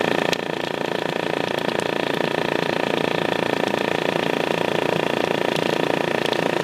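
Subwoofer driven with a steady low test tone, heard as a loud, steady buzz as the cone shakes a lump of cornstarch-and-water slurry.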